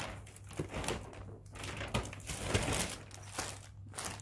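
Plastic bags and wrapping rustling and crinkling in several short bursts as packaged items are handled.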